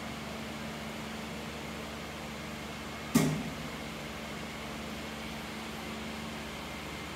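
Steady low hum over a hiss, with one sharp knock about three seconds in.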